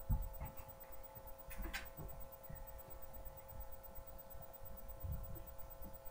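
Low thumps and rumble of handling noise on a handheld recording device's microphone, over a steady electrical hum; a short click about one and a half seconds in.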